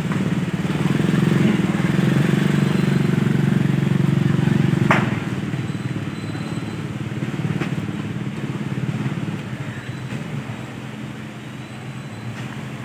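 An engine running steadily, loud for the first five seconds and then quieter, with a sharp click about five seconds in.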